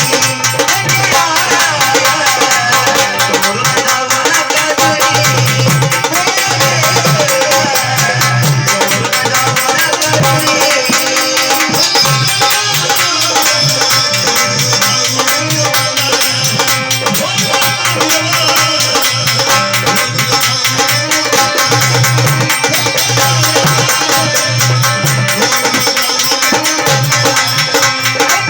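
Marathi gondhal folk devotional music: hand drums keep a steady beat under jingling percussion and a wavering melody line.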